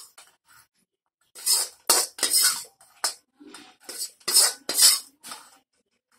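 Steel spoon scraping roasted sattu flour out of a steel kadhai and knocking it onto a steel plate: a run of short, irregular scrapes and clinks after a brief pause near the start.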